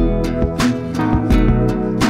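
Background music: strummed acoustic guitar with a bass line.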